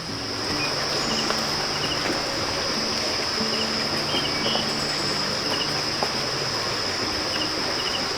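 A steady, high-pitched insect drone, with a few faint short chirps over it. Soft background music plays underneath as held low notes.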